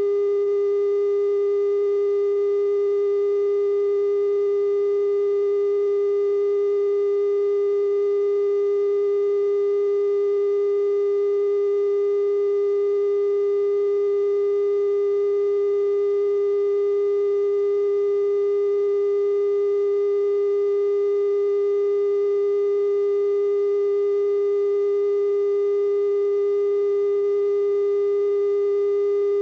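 Continuous 420 Hz television test tone, one unbroken steady pitch with faint overtones above it, sent with color bars while the station is off the air.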